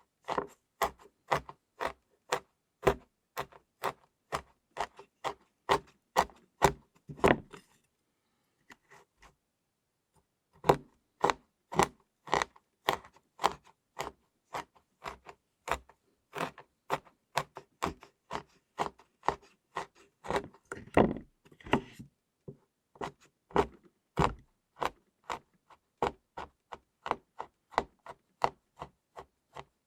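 A knife chopping flaked chocolate on a cutting board: crisp, even knocks about two to three a second. There is a pause of about three seconds a quarter of the way in, and a heavier knock about two-thirds through.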